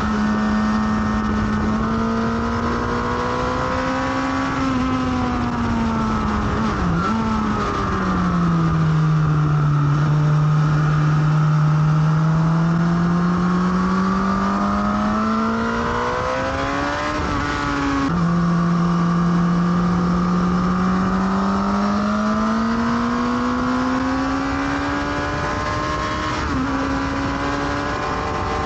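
Suzuki sportbike engine heard from on board at speed on a track, its note falling as it slows for a corner and rising again as it accelerates out. About eighteen seconds in the pitch drops suddenly at a gear change. A steady rush of wind noise runs under it.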